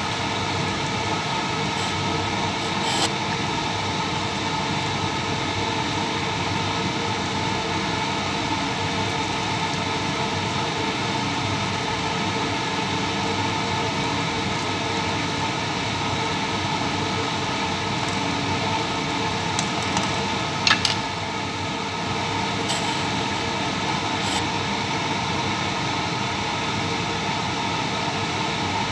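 Steady whirring drone of a kitchen ventilation fan, with a couple of brief clicks about three seconds in and again about two-thirds of the way through.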